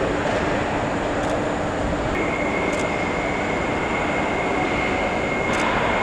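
Steady machinery and ventilation noise of a car assembly plant floor. A steady high tone comes in about two seconds in, with a few faint clicks.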